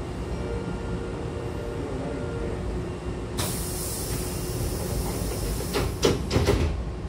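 Hankyu train's double sliding passenger doors closing: a sudden hiss of air starts about three seconds in, then the door leaves slide shut and meet with a quick run of knocks about six seconds in. Underneath is the steady hum of the stopped train.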